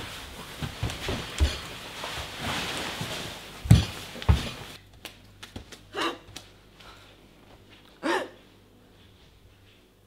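Scuffing and thumping of a body dragged across a wooden floor, with the two loudest thumps near the middle. After a quieter stretch come two short hiccups about two seconds apart.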